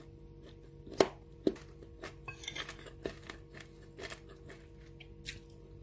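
Metal spoon tapping and scraping on a ceramic plate while scooping rice and stir-fry: scattered sharp taps, the loudest about a second in, with a short scrape near the middle, over a steady low hum.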